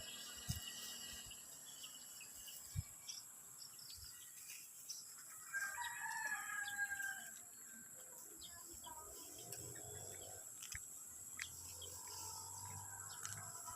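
A rooster crowing once, a drawn-out call of about a second and a half, roughly halfway through. A faint steady high-pitched whine and a few light clicks run under it.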